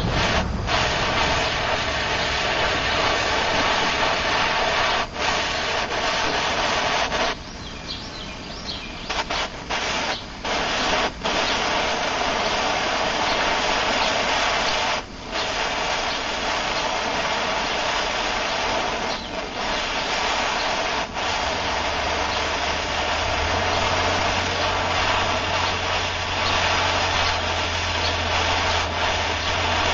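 Handheld gas torch flame hissing steadily against a forged steel knife blade, heating it to temper it. The hiss dips briefly a few times, most noticeably about seven seconds in.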